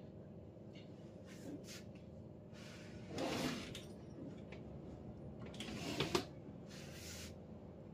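Rustling and handling noises as small things are picked up and moved at a shelf or cupboard, with two sharp clicks about six seconds in, over a steady low hum.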